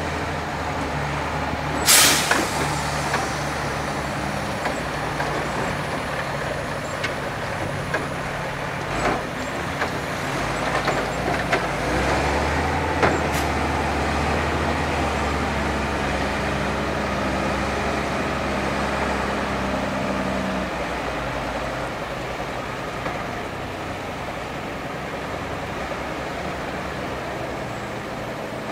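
Mercedes-Benz Unimog diesel engines running under load as the trucks crawl slowly across a steep off-road slope, the engine note shifting about twelve seconds in and again about twenty seconds in. A short, sharp burst about two seconds in is the loudest moment.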